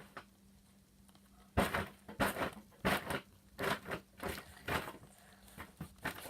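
Slime being squeezed and worked in the hands, giving a series of short wet clicks and pops, one or two a second, starting about a second and a half in.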